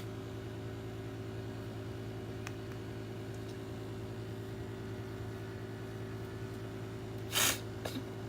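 Steady low mechanical hum of a room appliance with a few fixed tones, with a faint click about two and a half seconds in and a brief rustle of something handled near the end, the loudest moment.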